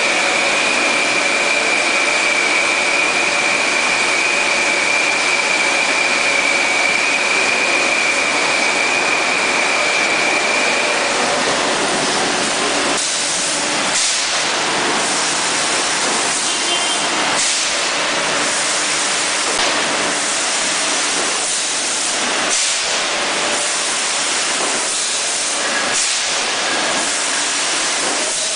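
PET bottle filling line machinery running: a loud, steady hiss with a high steady whine through the first ten seconds or so. From about twelve seconds on, irregular clicks and knocks join in.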